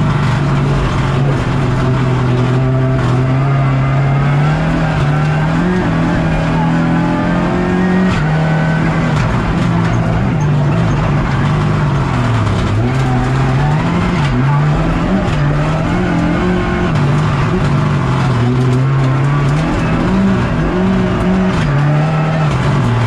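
Rally car engine heard from inside the cockpit at full competition pace. It climbs steadily through the revs at first, then rises and falls again and again through gear changes, braking and acceleration, and near the end the revs drop away.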